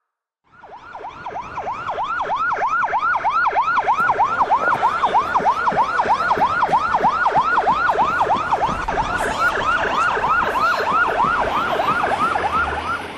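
Emergency-vehicle siren in a fast yelp, rapid swooping wails about four a second. It fades in from silence about half a second in, swells over the next couple of seconds and drops away near the end.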